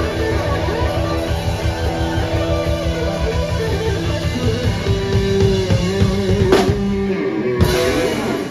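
Live rock band with electric guitar and drum kit playing loudly through the closing bars of a song. The steady drumming stops about seven seconds in, leaving a held, wavering guitar note punctuated by a couple of last hits, and the music cuts off abruptly at the end.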